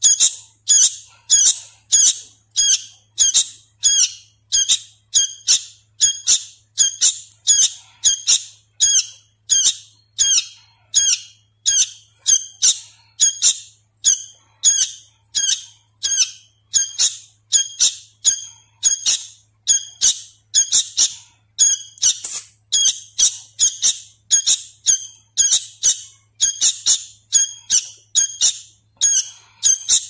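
A young hand-fed sooty-headed bulbul chick calling over and over: short, sharp, high-pitched calls at about two a second, the calls of a chick still learning its song.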